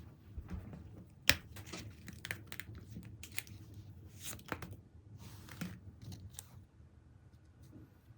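Packaging being handled and opened: short crinkling and rustling of plastic or paper, with a sharp click about a second in and longer rustles in the middle, dying down near the end.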